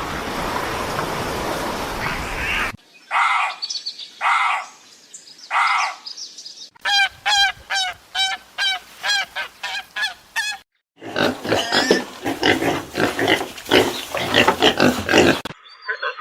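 A run of different animal calls in separate clips: a stretch of noise, then three drawn-out pitched calls, then a quick series of short repeated calls, then several seconds of dense, rapid chattering calls.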